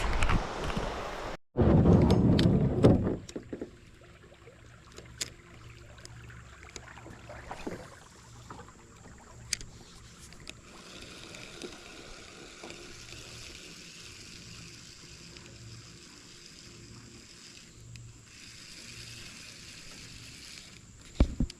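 Wind buffeting the microphone in a loud low rumble early on, then the faint steady rush of a shallow creek with scattered small clicks and taps.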